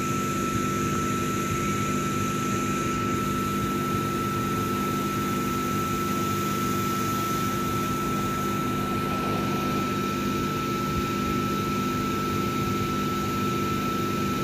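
Stainless-steel double-deck electric train standing at the platform, its onboard equipment humming steadily with a thin, constant high whine over it.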